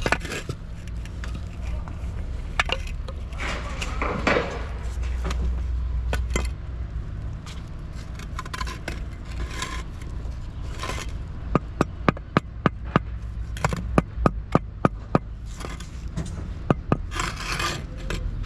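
A steady low rumble with scattered rustling and knocks, then, from about two-thirds of the way in, a run of sharp knocks at roughly three a second.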